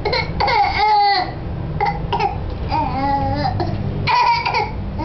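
A baby's voice: fussy, whimpering cries and babble in short broken bursts with gliding pitch, mixed with coughing.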